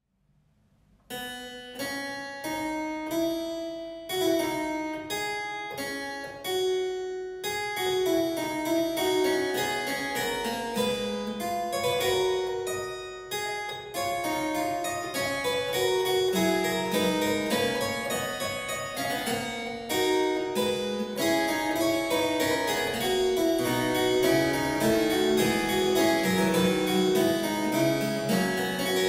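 Harpsichord playing a solo piece, its plucked notes starting about a second in after a brief silence and running on in a steady stream.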